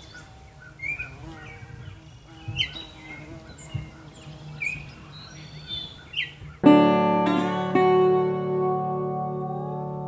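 Birds chirping in short calls over a faint background, then about two-thirds of the way in a guitar chord is struck and rings out, with another note picked about a second later as the chord slowly fades.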